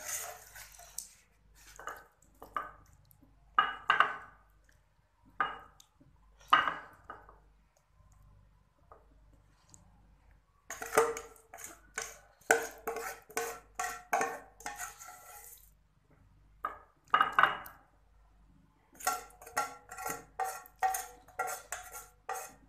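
Metal spoon scraping and knocking against a cooking pot and a glass serving dish as thick curry is spooned out, with a few loud single knocks and then two long runs of quick scraping strokes, one about halfway through and one near the end.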